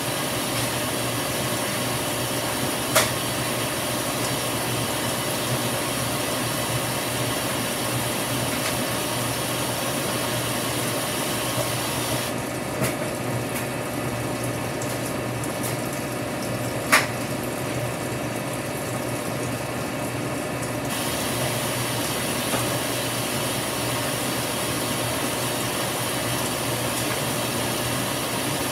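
Top-loading washing machine filling with water: a steady rush of water into the tub with a low hum, broken by a sharp click about three seconds in and another about seventeen seconds in.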